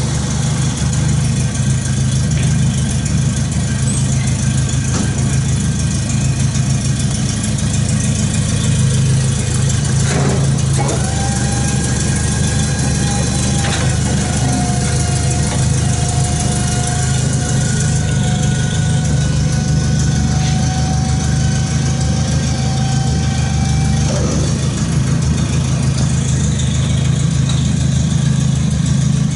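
Fairmont A4-E railroad gang car's engine idling steadily.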